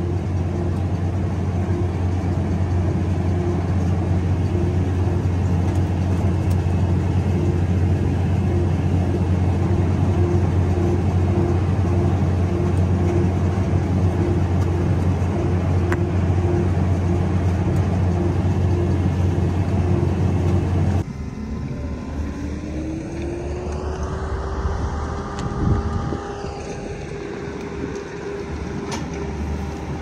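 Tractor running under load as it tows a Massey Ferguson 1842S small square baler through wheat straw: a steady heavy engine drone with a faint regular beat from the baler working. About two-thirds of the way through this gives way to a different engine revving up and then holding steady, with a single knock partway through.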